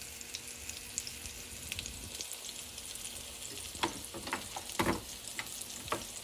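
Plantain slices frying in hot oil in a pan: a steady sizzle, with a few sharper pops and crackles in the second half.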